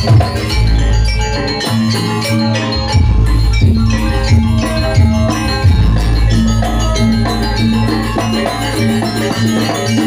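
Gamelan music accompanying a Banyuwangi janger dance: metal-keyed percussion plays a busy ringing melody over drums and repeated deep low strikes.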